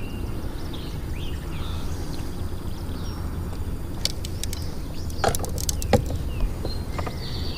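Steady low rumble with faint bird chirps. A few sharp clicks or knocks come between about four and six seconds in.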